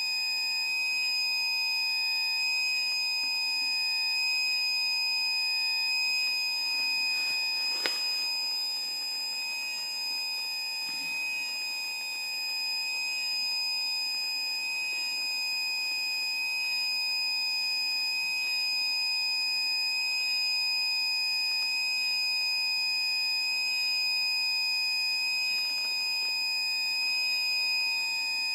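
Battery backup sump pump's alarm sounding one steady, unbroken high-pitched tone, signalling that the backup pump has been activated and its battery is losing charge. The backup pump's motor hums steadily underneath, running but moving no water out of the pit.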